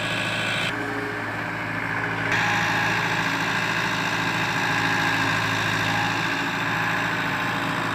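Caterpillar crawler excavator's diesel engine running steadily.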